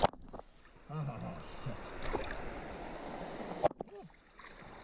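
Creek water moving and lapping, with short muffled vocal sounds about a second in and again near the end, just after a sharp knock.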